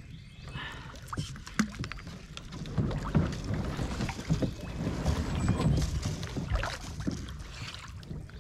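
A kayak being paddled and manoeuvred: paddle strokes splashing in the water, with scattered knocks and clunks of the paddle and hull.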